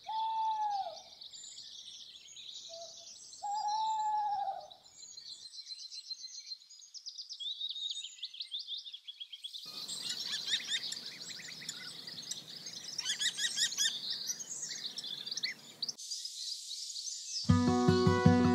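Dawn chorus of several songbirds, with dense high twittering and fast trills. A clearer, lower call sounds twice near the start, a steady low background noise comes in for a stretch in the middle, and music begins near the end.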